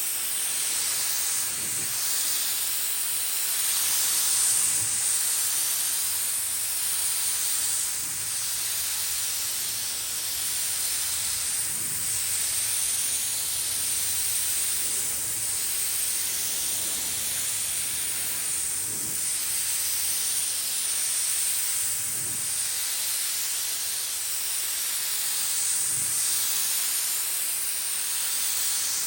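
Snap-on air spray gun hissing steadily as it sprays primer.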